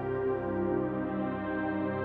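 Slow ambient background music of long held synthesizer-like notes that change gently.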